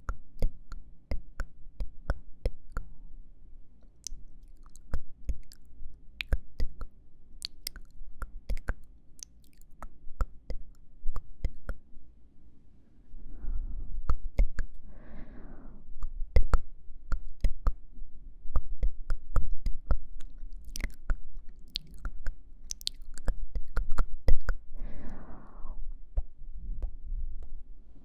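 ASMR mouth sounds: close, quick wet clicks of tongue and lips, irregular, with slow breaths into the microphone in the second half.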